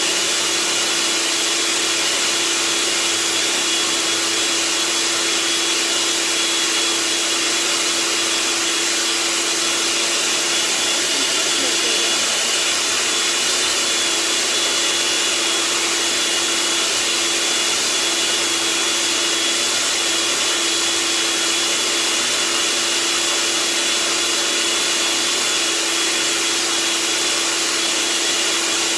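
Food processor motor running loudly and steadily, with a constant hum and a higher whine, as it grinds a thick chickpea falafel mixture with no water added.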